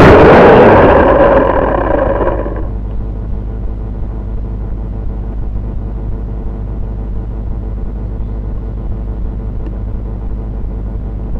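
V959 quadcopter's motors and propellers whining, then winding down and stopping about two and a half seconds in. What remains is a steady low rumble of wind on the microphone.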